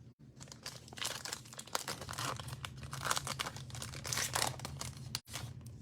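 Plastic wrapper of a Panini Prizm basketball card pack being torn open and crinkled, a run of crackling and rustling.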